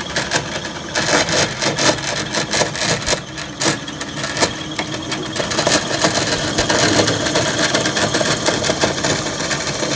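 Small electric motors of a homemade lathe running, with a fast, busy rattling clatter over a steady whir that grows steadier from about halfway.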